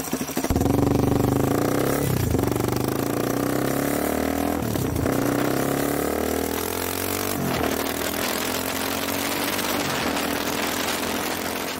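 Yamaha Serow 225's air-cooled single-cylinder four-stroke engine running through an aftermarket RSV slip-on silencer, fed by a Sudco PWK28 flat-slide carburettor. The exhaust note is loud and steady, with three brief changes in pitch from throttle blips about two, five and seven and a half seconds in.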